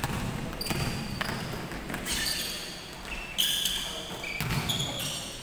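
Indoor basketball game on a hardwood court: a ball bouncing, feet thudding, and several short, high sneaker squeaks, most of them in the second half.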